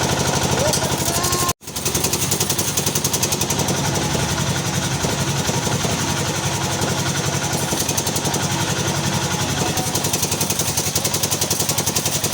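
Electric arc welding: a steady, rapid crackling buzz of the welding arc over the low hum of the welding machine. It cuts out abruptly for a moment about a second and a half in, then resumes.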